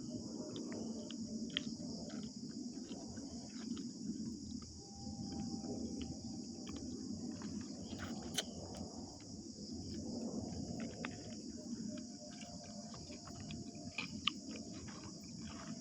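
A steady, high-pitched insect chorus of crickets shrilling continuously, over low rustling and scattered sharp clicks and ticks of close handling.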